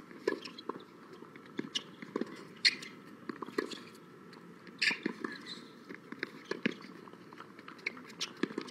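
Tennis rally on a hard court: sharp pops of racket strikes on the ball and ball bounces, with quieter shoe scuffs and steps between them; the loudest hits come around three and five seconds in.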